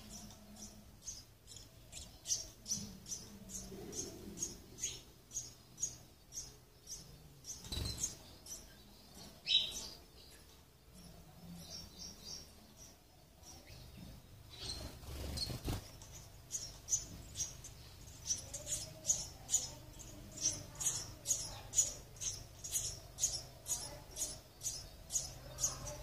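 House sparrows chirping at the nest: rapid, high-pitched chirps repeated about two to three times a second, thinning out for a few seconds midway.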